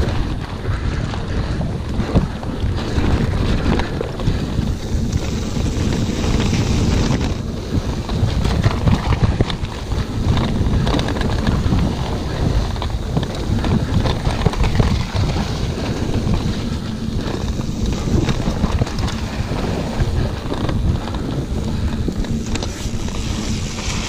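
Wind buffeting the microphone over the rumble of a mountain bike's tyres on a rough gravel trail at speed, with many small knocks and rattles from the bike.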